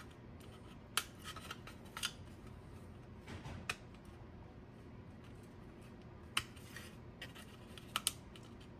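Scattered light clicks and small scrapes from hand-picking debris out of a model locomotive's plastic smokestack hole, with no tool motor running. The clicks come singly about a second or two apart, with a quick pair near the end.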